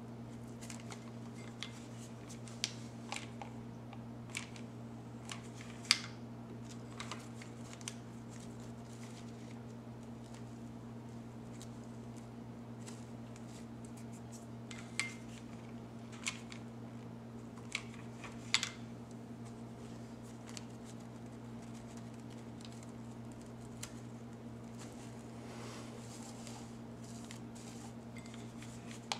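Quiet handling of an artificial silk rose and its leaves: scattered small clicks and rustles, a few sharper ones about six seconds in and near the middle. A steady low hum runs underneath.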